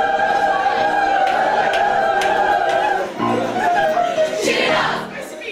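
A mixed group of teenage singers holding a final sustained chord, which cuts off about three seconds in, followed by excited shouts and whoops from the group.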